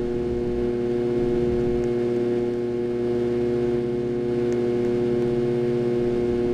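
Harbor Breeze Ocracoke ceiling fan motor running with a loud, steady hum of several even tones. The hum is the sign of a bad motor.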